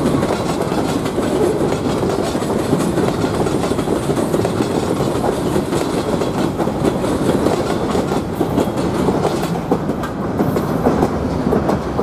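Freight train's covered hopper cars rolling past close by: a steady rumble of steel wheels on rail with clickety-clack over the rail joints. Near the end the last cars go by, the rumble thins and a few sharper clacks stand out.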